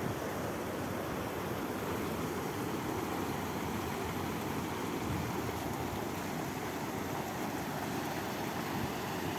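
Floodwater pouring over a concrete spillway edge and churning below it: a steady rush of running water.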